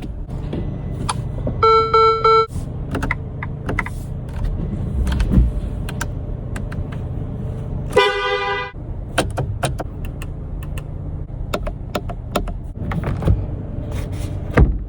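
Ferrari 296 GTB's twin-turbo V6 idling with a low rumble. It is broken by two short horn honks, one about two seconds in and one about eight seconds in, with scattered clicks throughout.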